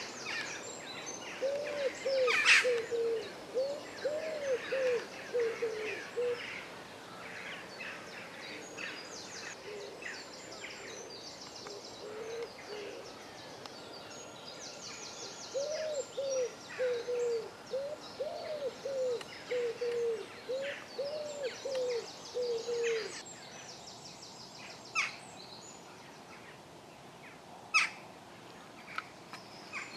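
A pigeon cooing: two runs of short, rising-and-falling low notes repeated at an even pace, over songbirds chirping in the dawn chorus. A few sharp clicks stand out, the loudest near the end.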